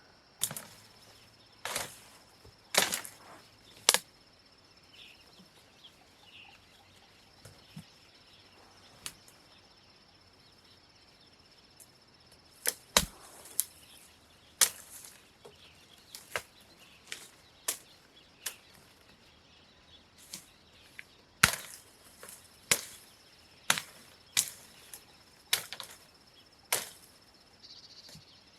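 A blade chopping at stems or wood: about twenty sharp strikes at uneven intervals, some with a short ring, in groups near the start, around the middle and in the second half.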